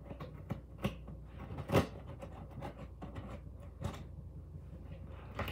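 Cardboard shipping box being cut open with a knife: scattered clicks, scrapes and knocks of the blade and box being handled, the loudest a little under two seconds in.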